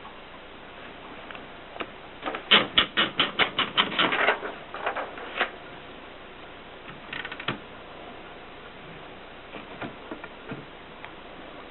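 Erika M manual typewriter being typed on: a fast run of about a dozen keystrokes about two seconds in, then a short cluster of strikes later and a few lighter ones near the end.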